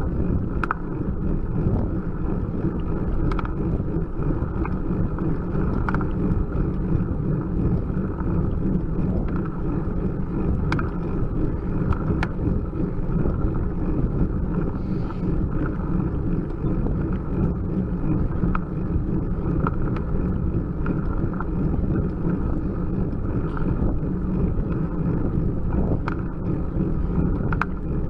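Steady low wind rumble and road noise on a bike-mounted Cycliq camera's microphone as a bicycle climbs slowly, at about 9 mph, with occasional light clicks and rattles.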